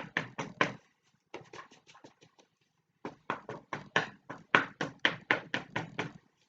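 Paint being dabbed onto paper with a folded piece of cardboard: quick taps at about four a second, lighter for a while and heaviest over the second half, stopping just before the end.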